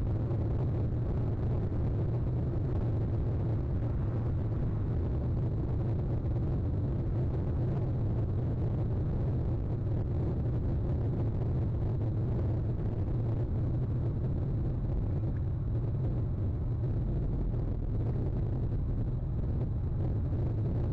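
Steady low rumble, unchanging throughout, with no bird calls.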